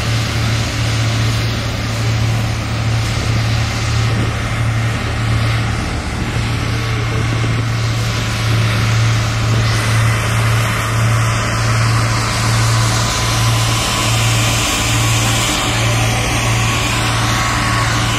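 Asphalt-paving machinery, a tandem road roller and an asphalt paver, running their diesel engines with a steady low hum.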